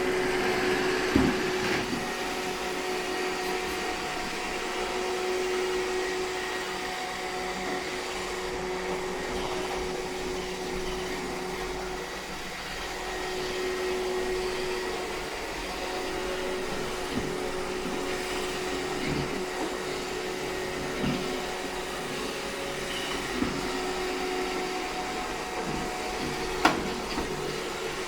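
iRobot Roomba 630 robot vacuum running: a steady whir from its motors with a held hum, and a few light knocks, the sharpest about a second in and near the end.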